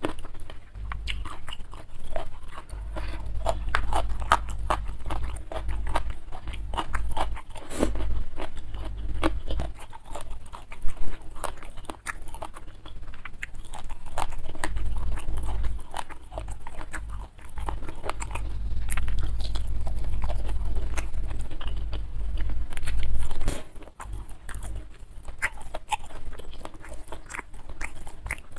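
Close-miked chewing and eating by hand: crunching and wet mouth clicks as fish, rice and raw vegetables are chewed, with a low rumble that comes and goes.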